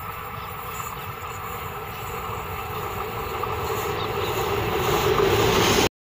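WDM-3A diesel-electric locomotive, with its ALCO 251 V16 engine, approaching with an express train: a steady engine buzz and train noise growing steadily louder as it nears. The sound cuts off abruptly just before the end.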